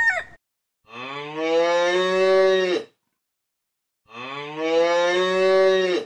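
Cattle mooing: two long moos of about two seconds each, about a second apart.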